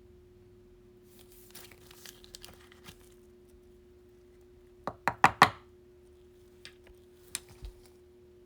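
Trading cards and plastic card sleeves being handled: soft rustling, then a quick run of sharp plastic clicks about five seconds in and a few single ticks after, over a faint steady hum.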